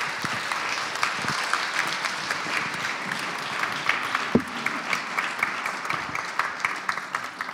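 Audience applauding, many hands clapping steadily, with one dull thump about four seconds in; the applause dies away near the end.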